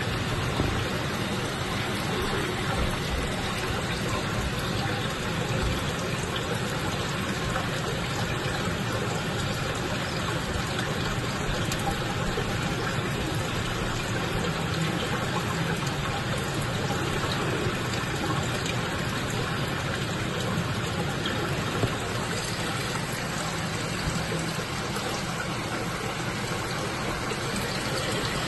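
Steady rush of water circulating through a saltwater aquarium system, its pumps and flowing water running without a break.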